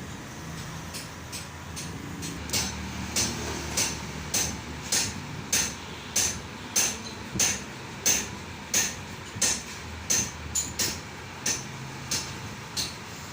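Metal being struck with a hammer in steady, evenly spaced blows, about one and a half a second, each with a short metallic ring. The blows start a couple of seconds in and stop just before the end.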